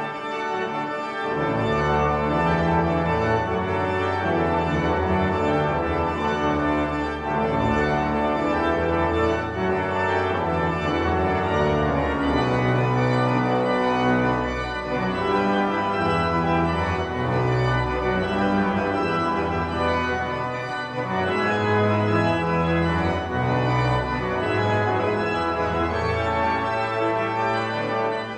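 Yale's Newberry Memorial pipe organ in Woolsey Hall playing the recessional: loud, sustained full chords over deep bass notes that change every second or two, dying away at the very end.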